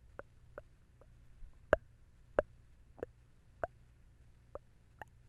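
Close-miked ASMR mouth sounds: a string of about nine wet mouth clicks and tongue pops, roughly one every half second, the loudest two coming a little under two seconds and about two and a half seconds in.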